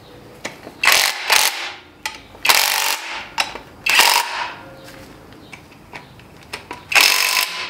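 Cordless impact wrench hammering in about five short bursts, each under a second, as it runs down bolts securing the front differential to the engine.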